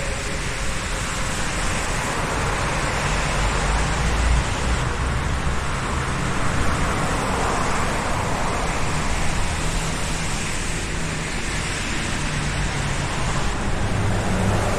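Road traffic: a steady wash of tyre and engine noise from passing cars, swelling as vehicles go by, with a heavier low engine rumble about four seconds in.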